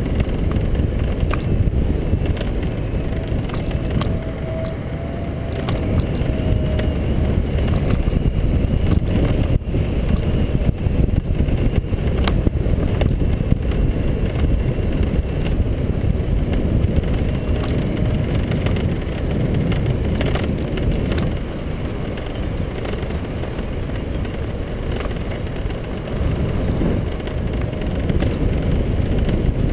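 Steady low rush of wind on the microphone and rumble of tyres rolling on asphalt from a camera riding along the road, with scattered small clicks and rattles.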